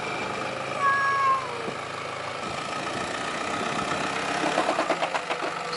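Nissan D22 Navara's engine idling steadily. About a second in, a short high-pitched call with a slight fall in pitch sounds over it, and near the end the sound turns rougher and pulsing.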